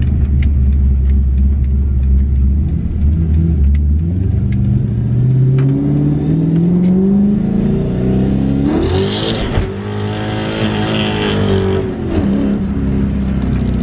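Carbureted Ford 302 V8 of a 1995 Mustang GT heard from inside the cabin as the car pulls away and accelerates. The engine note holds low for a few seconds, then climbs steadily, dips briefly about nine seconds in, climbs again with a rush of intake noise, and eases off near the end.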